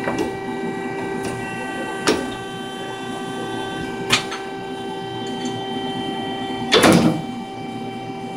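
Old upright drill press running with a steady electric hum, with a few sharp knocks about every two seconds as it is worked by hand; the loudest comes about seven seconds in.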